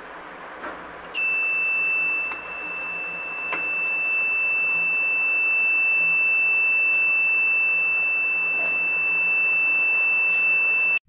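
A faint click, then about a second in a small electronic buzzer on a BC547 transistor trip-alarm circuit sounds one continuous, steady high-pitched tone that cuts off sharply near the end. The buzzer is sounding because the trip-wire loop has been cut, which sets off the alarm.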